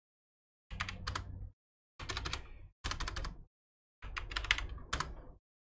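Computer keyboard typing in four short bursts of keystrokes.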